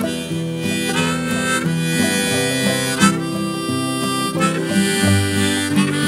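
Harmonica playing a melody with some sliding notes over a strummed acoustic guitar, in the instrumental break of a folk blues song.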